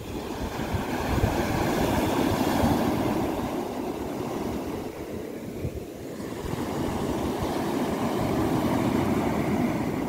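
Small sea waves washing up over a sandy beach and running back, the surf swelling twice with a lull between, over the low rumble of wind buffeting the microphone.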